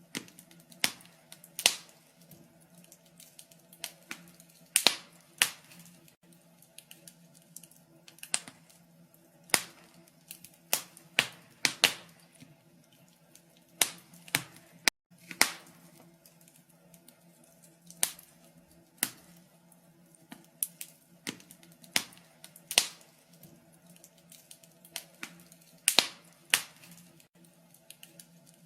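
Wood fire crackling in a fireplace: irregular sharp pops and snaps, often in quick pairs, over a faint steady low hum.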